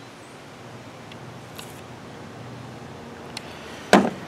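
A few faint clicks over a steady low hiss, then about four seconds in a single sharp knock as a household oil can is set down on a truck bed liner.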